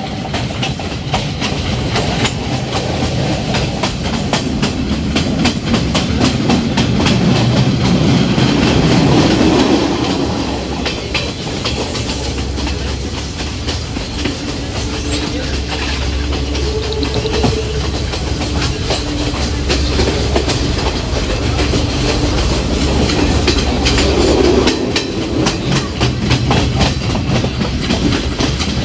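Train running along the track, heard from on board: a steady rumble with quick, repeated clicking of the wheels over the rails.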